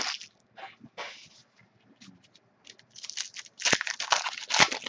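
Foil trading-card pack wrapper crinkling and tearing as a new pack is opened, in short bursts about a second in and then a dense run of crackling near the end.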